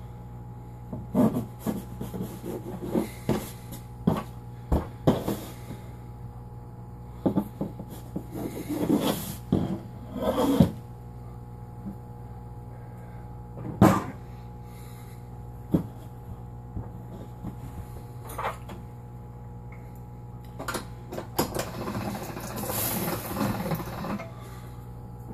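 A knife knocking and scraping on a tabletop as a ball of pasta dough is cut into pieces, with scattered knocks and handling sounds over a steady low hum. Near the end comes a longer scraping rub as the metal pasta machine is handled on the table.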